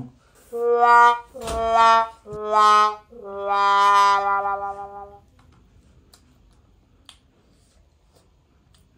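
Four held brass notes stepping down in pitch, the last held for about two seconds: a 'sad trombone' comedy sound effect.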